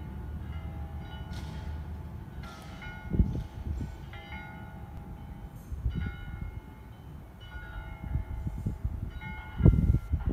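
Church bells ringing, struck every second or two, each strike leaving a ringing tone that fades slowly. Underneath runs a steady low rumble, with a few sharp low thumps, the loudest near the end.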